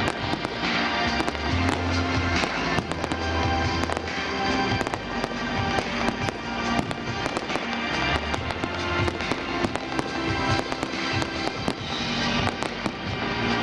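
Fireworks going off in quick, irregular succession, many bangs and crackles of bursting shells, over music with held notes.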